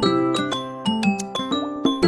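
Background music: a bright keyboard tune with chime-like plucked notes, several notes a second.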